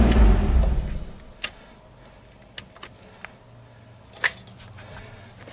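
A car engine idling, then switched off, dying away over the first second. After that come a few light clicks and a jangle of keys about four seconds in, as the ignition key is worked.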